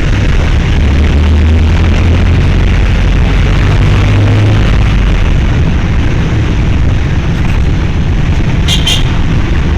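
Steady, loud rumble of road-vehicle engine and traffic noise, with a couple of short rattles near the end.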